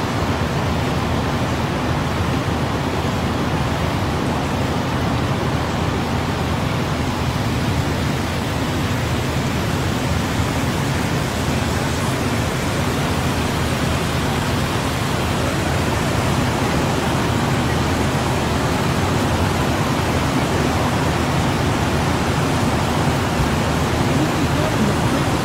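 Floodwater rushing across a road, a steady, unbroken noise.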